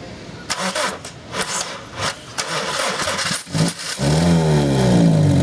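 2001 Honda Civic's 1.7-litre four-cylinder engine cranking on the starter, catching about four seconds in, then running with its speed steadily falling as it begins to die out. This is the start, run and stall of an engine whose timing belt was installed out of time.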